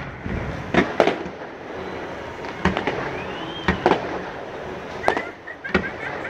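Fireworks display: about half a dozen sharp bangs of shells bursting in the air, with a short whistle rising and falling about three seconds in.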